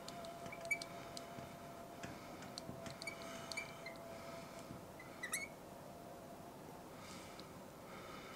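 Faint squeaks and light ticks of a marker pen writing on a glass board, coming in small clusters, over a faint steady thin hum that fades out about halfway through.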